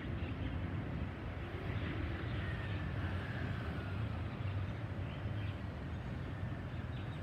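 Distant, steady low rumble of a Gulfstream G-V business jet's twin Rolls-Royce BR710 turbofans after a flyover, with a few faint bird chirps.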